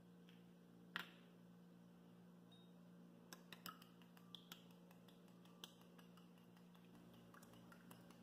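Faint, irregular light clicks and taps from handling an egg: the shells set down on a plate and a fork tapping a small glass bowl as the egg is beaten. The sharpest tap comes about a second in.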